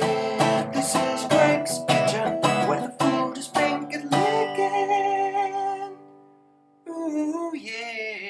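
Guitar music, plucked and strummed notes, dying away about six seconds in. After a short gap a different pitched sound with a wavering pitch begins near the end.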